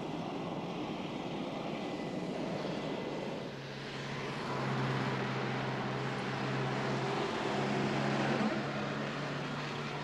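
Jet aircraft engine noise with a thin high whine. After about three and a half seconds it gives way to car traffic driving past, with a steady low engine hum.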